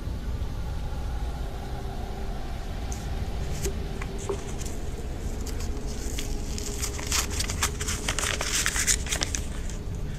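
A small sheet of paper rustling and crinkling as it is unrolled and unfolded by hand. The crinkling starts about three seconds in and is busiest near the end, over a low steady hum.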